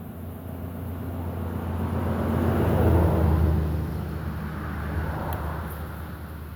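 A motor vehicle passing by: engine and road noise swell to a peak about three seconds in, then fade away.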